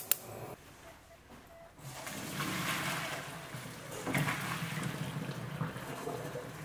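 Hot pasta water poured from a pot into a colander in a sink: a steady rush of splashing water and hissing steam that starts about two seconds in and surges again about four seconds in.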